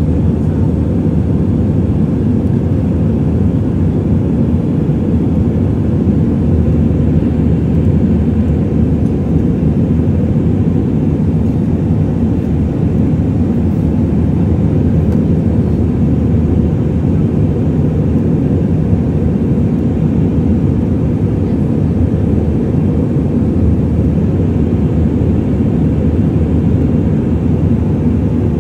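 Airbus A320 cabin noise in flight: the engines and the airflow over the fuselage make a steady, low rumble that does not change.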